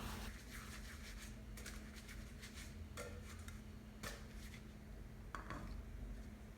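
Faint kitchen handling sounds: a handful of light clinks and scrapes of utensils against dishes, over a low steady hum.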